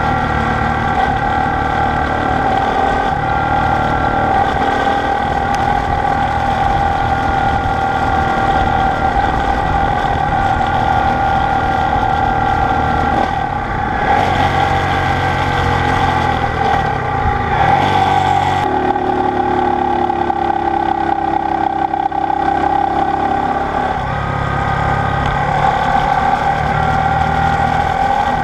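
Honda SL90's 90 cc single-cylinder four-stroke engine running steadily while riding, with wind on the microphone. About two-thirds through, the wind noise cuts off and the engine note eases as the bike slows. It picks up again near the end.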